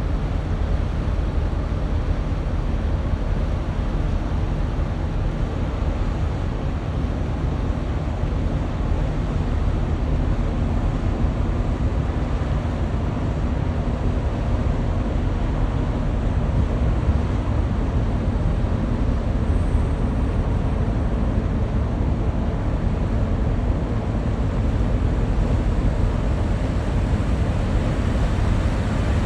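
Steady deep rumble of a large cargo ship's engine running, mixed with a rushing wind-and-water hiss.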